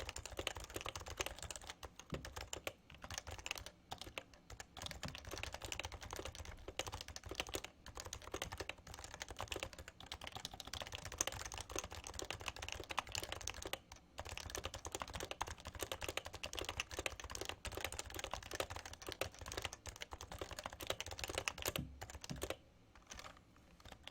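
Fast continuous typing on a Happy Hacking Keyboard Professional with Topre electrostatic capacitive switches: a steady stream of keystrokes with a few brief pauses, ending shortly before the close.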